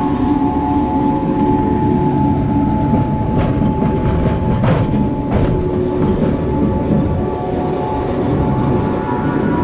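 Rail bike's steel wheels running along the track: a steady rumble with a constant high-pitched tone, and three sharp clicks in the middle.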